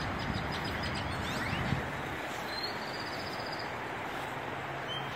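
Steady outdoor background hiss with small birds chirping over it: a quick run of chirps at the start, a trill about halfway through, and another trill near the end.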